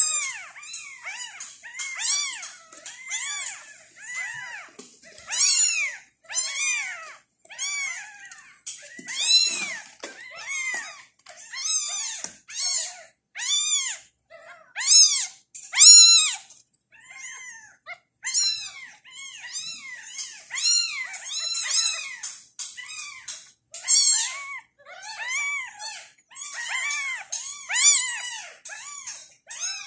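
Newborn tabby kittens crying: high-pitched meows that rise and fall in pitch, one after another about once a second. The cries come from tiny kittens being hand-fed from a feeding bottle.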